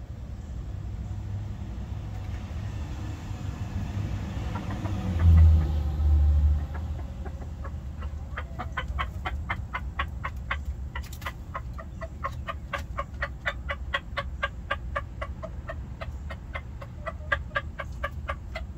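Red junglefowl clucking in a long, even series of short clucks, about three or four a second, starting a little before halfway. Before that comes a louder low rumble lasting about two seconds, roughly a third of the way in.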